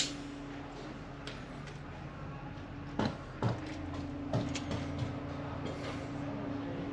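A steady low machine hum, with a sharp click at the very start and a few short knocks and clicks around three to four and a half seconds in.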